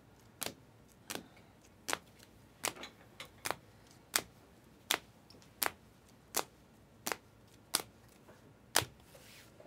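Sharp plastic clicks, about one every three quarters of a second, as trading cards in rigid plastic top loaders are flipped one by one off the front of a stack and knock against each other.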